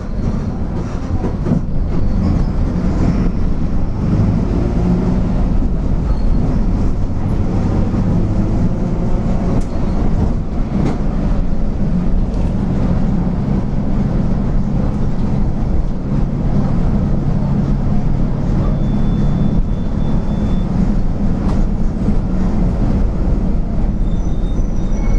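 Mercedes-Benz OF-1722M city bus under way: a steady low engine drone and heavy drivetrain rumble, with the driveshaft growling.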